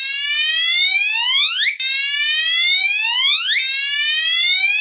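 Gentex Commander 3 fire alarm horn strobe sounding a whoop tone. It is a loud rising sweep that climbs for about 1.8 s, drops back and repeats, nearly three times here.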